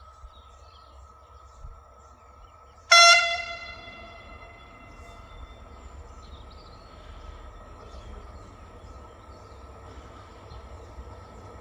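A train horn sounds one short, loud blast about three seconds in and fades away over about a second. The low, steady running noise of a train approaching the platform follows, over a faint steady high whine.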